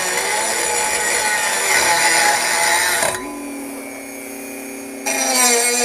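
Power tool cutting thick sheet steel, its pitch wavering with the load. About three seconds in it drops abruptly to a quieter steady hum for about two seconds, then the loud cutting sound returns.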